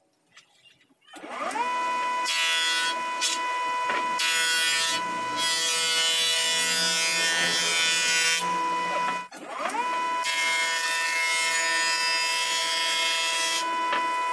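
A bench-mounted jointer-planer's motor spins up about a second in and runs with a steady high whine. A wooden board is fed across the cutterhead, adding a loud rough cutting noise over the whine. After a brief break a little past the middle, the machine spins up again for a second cutting pass.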